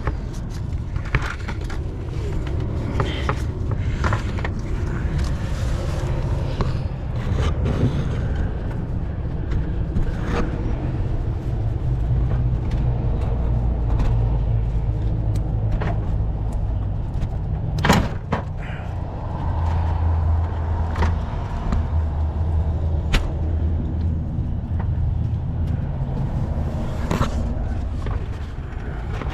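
Plastic engine cooling fan assembly being worked into its radiator mounting clips: scattered knocks, scrapes and clicks, with a sharp click about 18 seconds in and another about 23 seconds in. A steady low hum runs underneath.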